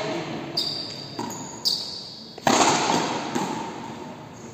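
Frontenis rally: the rubber ball is struck by stringed rackets and rebounds off the frontón wall, making four sharp smacks, some with a brief high ping. The loudest comes about two and a half seconds in, and each hit echoes through the large court hall.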